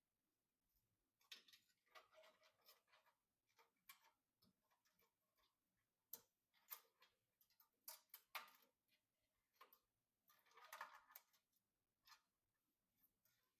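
Faint, scattered clicks and short rustles of PC parts and packaging being handled, with a run of sharper clicks about six to eight seconds in and a longer rustle near eleven seconds.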